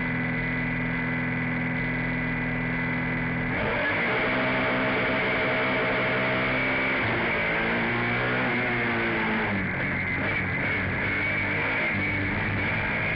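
Rallycross car's engine heard from inside the car, held at steady high revs on the start line, then launching about three and a half seconds in and rising in pitch again and again as it climbs through the gears under full acceleration.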